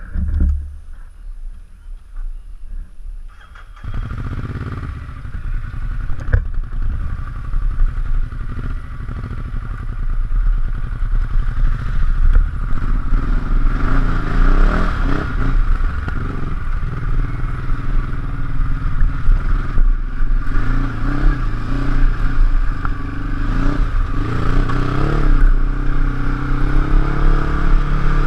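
Ducati Hyperstrada's L-twin engine ticking over quietly, then pulling away about four seconds in and running along a dirt trail, its revs rising and falling, with a steady hiss over it.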